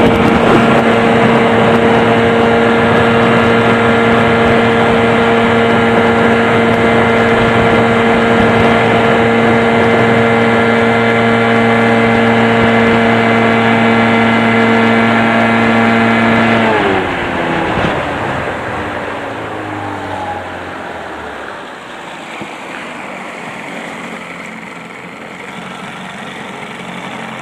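1990 Evinrude 15 HP two-cylinder two-stroke outboard running flat out with a steady high note. About two-thirds of the way through it is throttled back: the pitch falls and the motor settles to a much quieter, low-speed run.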